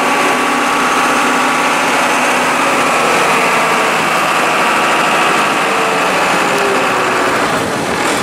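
The sea tractor's engine running steadily, heard from its open deck.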